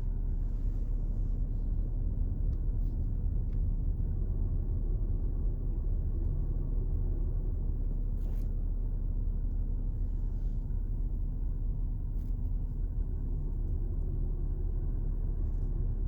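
Steady low rumble and drone inside the cabin of a BMW 330d (3.0 straight-six diesel) rolling slowly with the brakes applied. It carries the low vibrating hum the owner hears only while braking and traces to the brake vacuum pump, its pulsing carried through the vacuum line into the firewall.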